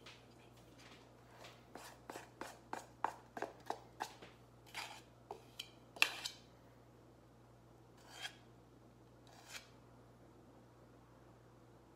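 Metal spoon stirring and scraping icing in a stainless steel bowl: a run of quick scrapes, about three a second, then two slower single scrapes near the end.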